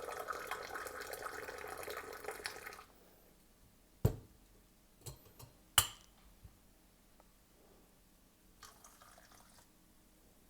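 Tea being poured from a teapot into a glass, a steady splashing stream that stops about three seconds in. Then a couple of sharp knocks, as of a glass or pot set down.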